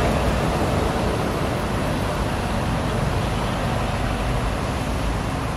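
Steady rumble of an SMRT Kawasaki C151B metro train running away along the elevated concrete viaduct, mixed with road traffic, slowly fading.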